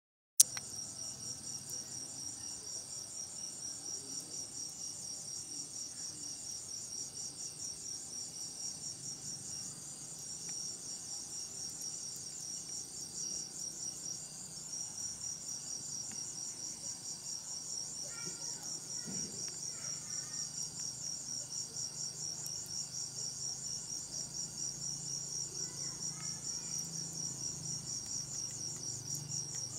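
A chorus of night insects trilling steadily at a high pitch with a fast, even pulse, starting abruptly with a click. A few faint chirps come through about two-thirds of the way in and again near the end.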